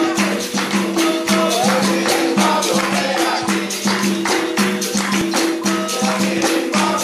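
Capoeira music led by berimbaus, including the low-pitched gunga, twanging two notes back and forth in a steady repeating rhythm. Tambourine-like jingles and rattle strokes fall on the beat.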